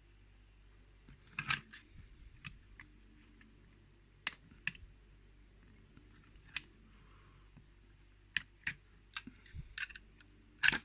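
Scattered light clicks and taps of small metal tools and lock parts being picked up and handled, about a dozen irregular clicks with a sharper one near the end.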